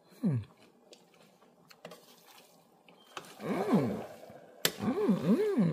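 A person humming "mmm" in enjoyment while tasting a spoonful of spinach stew: a short falling hum near the start, then one longer rising-and-falling hum and, after a sharp click, two more in quick succession near the end.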